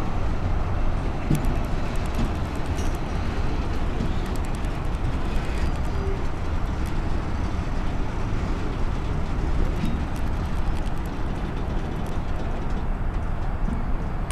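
CSX freight train's loaded flatcars rolling past: a steady rumble of steel wheels on the rails, with scattered faint clicks.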